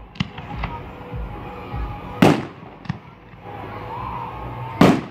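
Aerial fireworks exploding: a few small sharp cracks, then two loud bangs about two and a half seconds apart, the second near the end.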